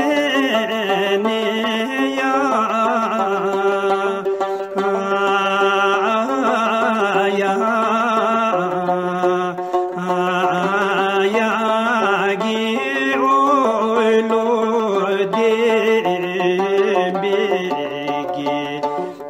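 Bhutanese zhungdra song: a voice sings long, drawn-out notes that waver and turn slowly, over a musical accompaniment.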